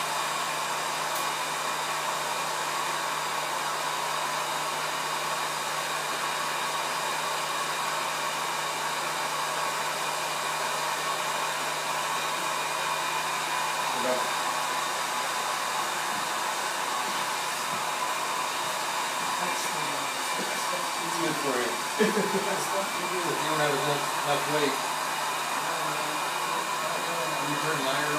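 Motor-driven honey extractor running steadily as it spins the frames in its drum: a constant whir with a steady hum.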